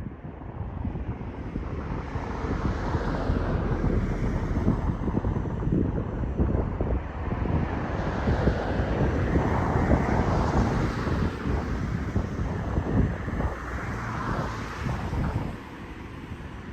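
Jet airliner passing low overhead: a roar that builds for several seconds, peaks about ten seconds in, then fades, with wind buffeting the microphone.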